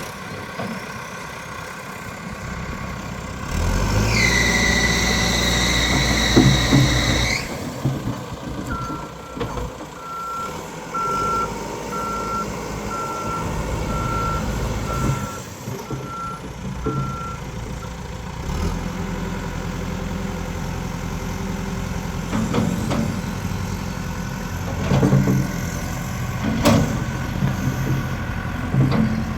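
A Caterpillar 416E backhoe loader's diesel engine running. It revs up about four seconds in with a high whine for a few seconds. Its reversing alarm then beeps about once a second for roughly nine seconds, and a few clanks come near the end.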